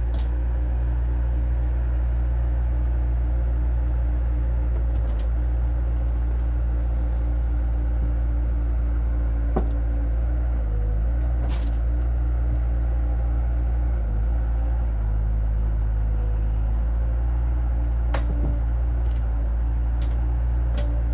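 A vehicle engine running steadily with a deep, even hum, likely the machine unloading the hay bales. A few sharp knocks sound over it.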